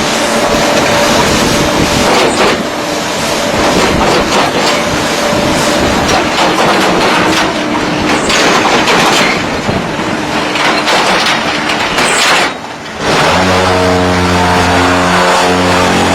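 Concrete-block press machine running loudly with continuous rattling and shaking noise. About two-thirds of the way through, the sound drops out briefly and a steady drone of a motor follows, sinking in pitch near the end as it winds down.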